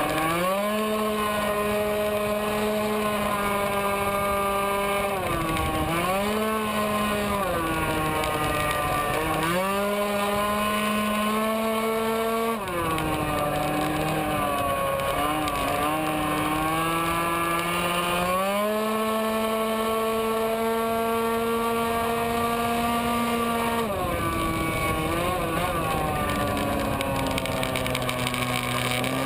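Tuned racing scooter engine at high revs, recorded on board, holding a steady high pitch along the straights. About half a dozen times the pitch dips briefly as the rider rolls off for a corner, then climbs back up.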